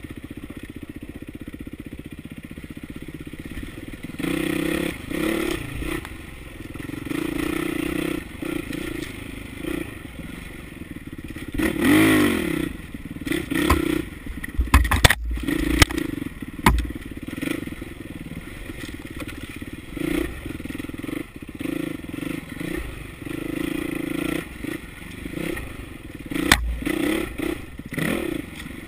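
Dirt bike engine revving up and down over rough singletrack, the revs climbing and falling as the throttle is worked. Sharp knocks and clatter come from the bike over rocky ground, a cluster about halfway through and another near the end.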